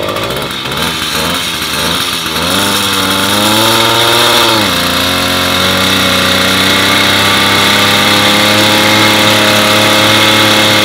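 Small two-stroke bicycle motor-kit engine being bump-started by pedaling, its rear wheel on a stand trainer: it sputters unevenly at first and catches about two seconds in. It revs up for a couple of seconds, then drops sharply to a steady idle for the rest.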